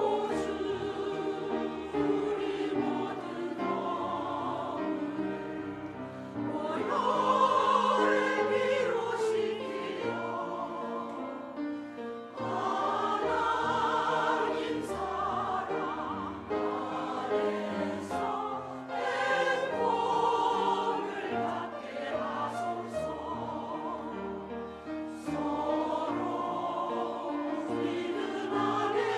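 Church choir singing a Korean hymn in sustained phrases that swell and ease off every few seconds, over steady low accompanying notes.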